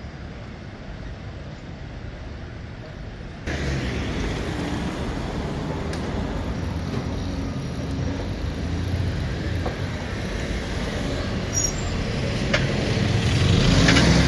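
Road traffic on a busy street, with a bus engine running close by, getting louder near the end.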